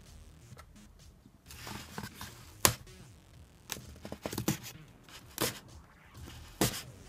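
A nail scraping and picking at packing tape along the seam of a cardboard shipping box to slit it open: a few short scratches and sharp clicks at irregular intervals.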